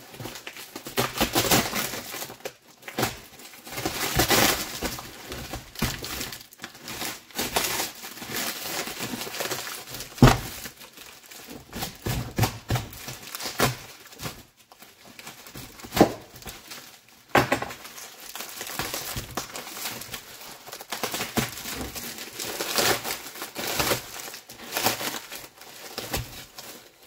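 Heavy packing-tape and plastic wrapping being torn and crumpled by hand off a parcel: irregular ripping and crinkling, with two sharp louder cracks about ten and sixteen seconds in.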